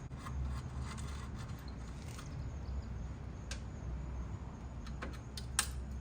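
Light metallic clicks and ticks of a tool working out the rusty screws of a headlight lens retaining frame, with one sharper click about five and a half seconds in, over a steady low rumble.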